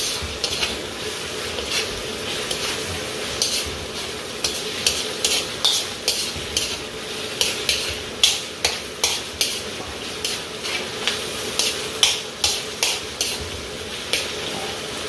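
Chicken liver, garlic and onion sizzling in a wok, with a steady hiss, while a metal slotted spatula scrapes and clinks against the pan in frequent, irregular strokes.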